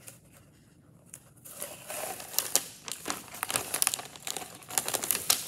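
Sheets of contact paper being unrolled and peeled apart, the stiff plastic film and its backing crinkling and crackling with many sharp snaps. It starts about a second and a half in.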